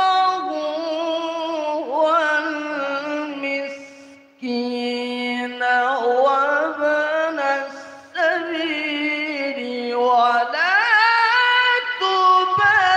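A man reciting the Quran in the melodic tilawah style, holding long ornamented notes that bend and climb in pitch. There are two short breaks for breath, about four and eight seconds in.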